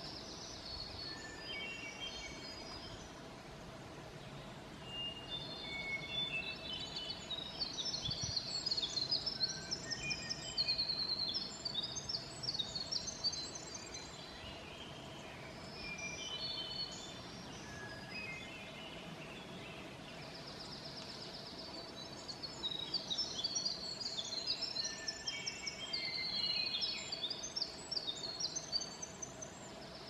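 Several forest songbirds singing at once, an overlapping chorus of high whistled notes, chirps and rapid trills that grows busier for stretches and then thins out.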